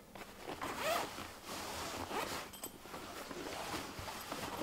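The zipper of a Ryobi UTB4 medium fabric tool bag being pulled open along the top of the bag, a long scratchy zip.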